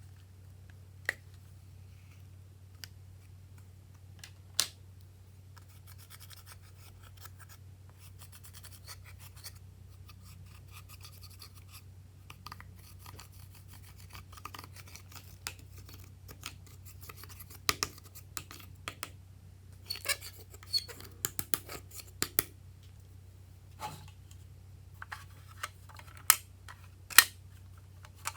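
Glossy slime being handled and mixed: scattered sharp clicks and crackly, sticky snaps, busier in the second half, over a steady low hum.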